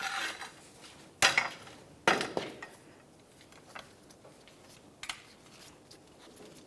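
Metal tools clanking against the suspension hardware: three sharp, ringing clanks in the first couple of seconds, then a few faint ticks.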